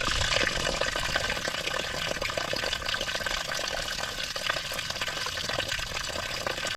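Water rushing and splashing steadily, a hiss-like rush of moving water over rocks.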